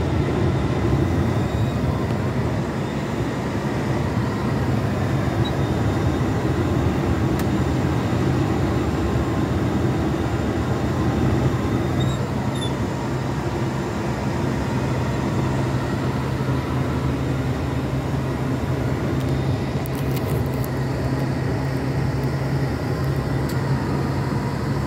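Steady engine drone and road noise heard inside a lorry's cab while driving, with a low hum that holds even throughout.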